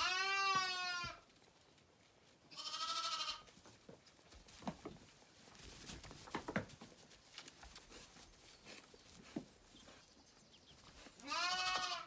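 Zwartbles lambs bleating: three loud calls, a first one about a second long at the start, a shorter, higher one about three seconds in, and a last one near the end. A few soft knocks and clicks fall in the gaps between the calls.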